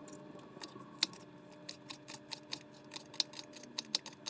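Kitchen knife chopping sweet peppers on a cutting board: a quick, uneven run of sharp taps, about four a second.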